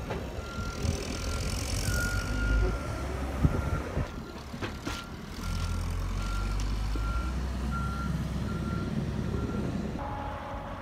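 Reversing alarm of a heavy earthmoving machine clearing mudslide debris off the track, a single-pitched beep repeating about once every 0.7 s, over the low rumble of its diesel engine. A couple of knocks sound partway through, and the beeping stops near the end.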